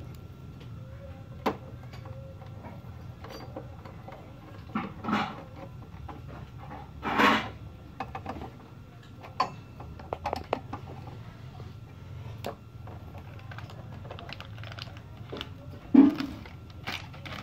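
Scattered clicks and knocks of a metal TV wall-mount bracket and its bolts being handled and tightened by hand on the back of a TV, with a longer rasp about seven seconds in and the loudest knock near the end. A low steady hum runs underneath.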